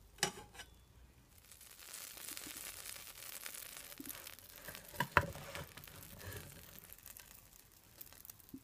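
Pancake batter sizzling faintly in butter in a non-stick frying pan, while a slotted metal turner scrapes and knocks against the pan as it is worked under the pancake, with the loudest knocks about five seconds in.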